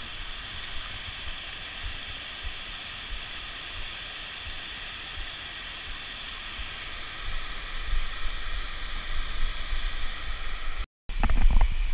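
Steady rush of flowing river water, with wind buffeting the microphone in low, uneven thumps over the last few seconds.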